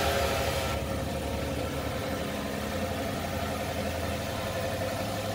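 A 2020 Chevrolet Silverado's 4.3-litre V6 idling steadily just after being started, a little louder in the first second before settling.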